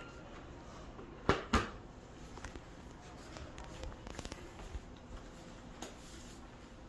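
Two sharp metallic clicks about a quarter second apart, a little over a second in, then a few faint taps: the metal top rail of a roll-up banner being hooked onto the top of its support pole.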